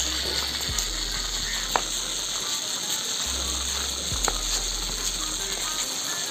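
Small electric motor and plastic gearbox of a homemade matchbox toy truck whirring steadily as the truck drives over concrete, with a couple of sharp clicks.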